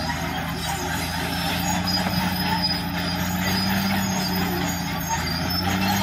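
Caterpillar D6R crawler bulldozer's diesel engine running steadily under load as it pushes a blade-full of soil and gravel, its note lifting slightly about four seconds in and again near the end.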